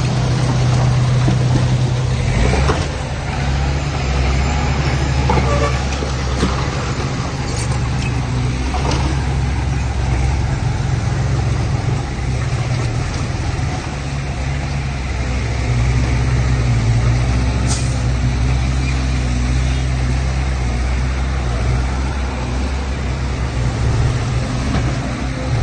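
Heavy diesel engine of a dump truck or bulldozer running steadily at work, with a few short knocks.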